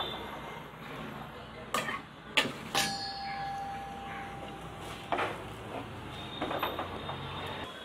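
Wooden spatula stirring and scraping spinach and grated coconut in a clay pot, with a few sharp knocks; one knock about three seconds in is followed by a clear ring that hangs on for about two seconds.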